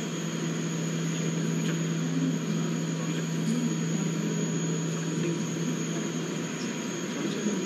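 Steady mechanical hum with a rushing air noise, and a low droning tone under it that cuts off about six and a half seconds in.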